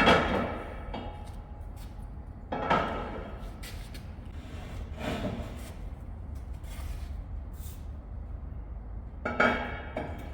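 Steel pieces being knocked into place on a steel frame: four ringing metal clanks a few seconds apart, the first the loudest, over a steady low hum.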